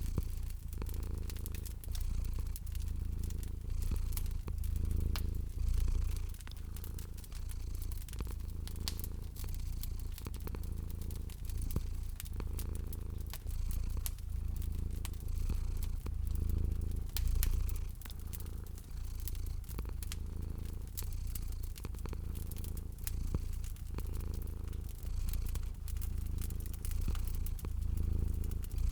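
Domestic cat purring, a steady low purr in slow repeated swells, over the scattered sharp clicks of a wood fire crackling in a fireplace.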